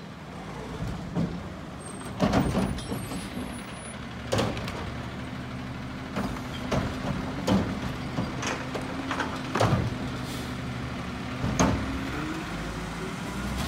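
Front-loading garbage truck running its engine and hydraulics as its front cart arm grabs, lifts and dumps a trash cart. A steady engine hum is broken by a series of sharp metal clunks and bangs, and a held low tone rises near the end.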